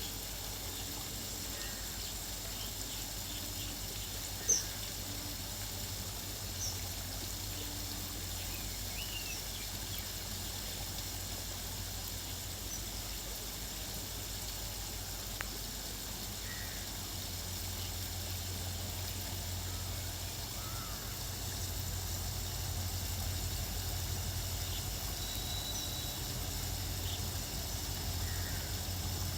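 Outdoor ambience of scattered short bird calls over a low, steady rumble that grows a little stronger in the second half, with a sharp short chirp about four and a half seconds in.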